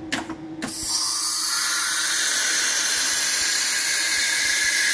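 Compressed air blasting through the automatic-tool-change spindle of a CNC router as it releases its tool holder into the rack: a short clatter, then under a second in a loud, steady, high-pitched hiss with a thin whistle in it.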